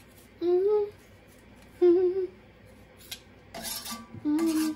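A man humming a few short, held notes between pauses. Near the end there are a couple of brief scrapes, a knife against the rim of a cooking pot.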